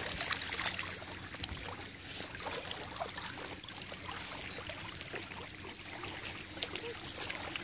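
Small waves lapping at a lake's edge: a steady watery hiss scattered with small trickles and clicks.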